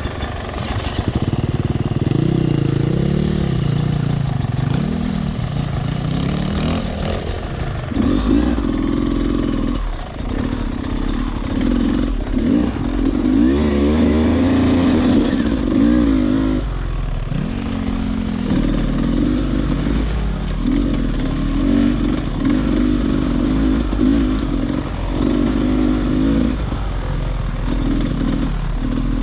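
Dirt bike engine running under constantly changing throttle on a trail: repeated surges of revving broken by short let-offs.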